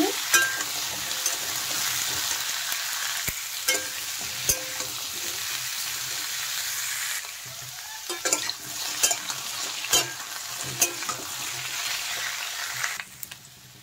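Cubed vegetables sizzling in hot mustard oil in a metal kadai while a metal spatula scrapes and clinks against the pan as they are stirred. The sizzle eases a little about halfway through and dips briefly just before the end.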